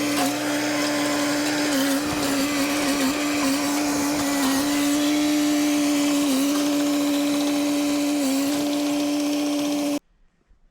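Hitachi EX100 excavator's engine and hydraulics running hard under work, a steady high whine that dips briefly in pitch a few times as load comes on. It cuts off suddenly near the end.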